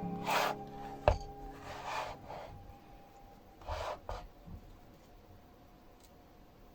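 A few short rubbing and scraping noises and one sharp knock about a second in, as guitar background music fades out.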